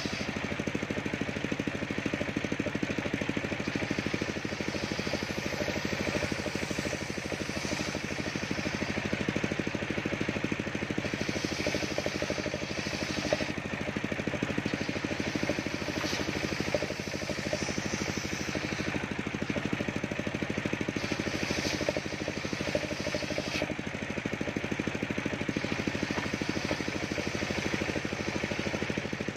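Engine-driven circular saw bench running steadily while ripping planks of waru (sea hibiscus) wood. A few brief sharp clicks sound over it partway through.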